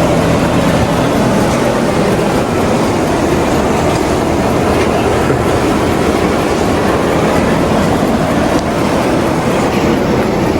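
A big motor on dairy barn machinery running steadily, loud at close range.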